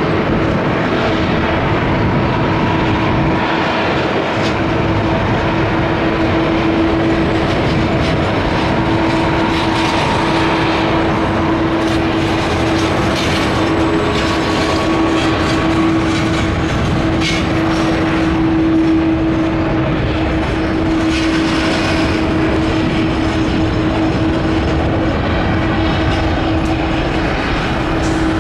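Boeing 777-200ER twin jet engines on a landing, running loudly and steadily with a rumble and a steady whine.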